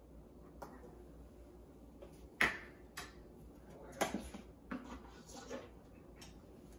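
Kitchen counter handling: a series of short clicks and knocks as a plastic whey protein tub and an ice cream carton are picked up, opened and set down. The sharpest knock comes about two and a half seconds in, and another about four seconds in.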